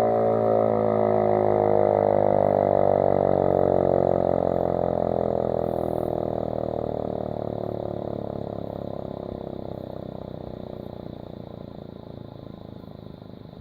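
Elektror S2A air-raid siren winding down after being switched off, its motor turning in the correct direction: a loud multi-tone wail that falls slowly in pitch, holding its strength for a few seconds and then fading away steadily.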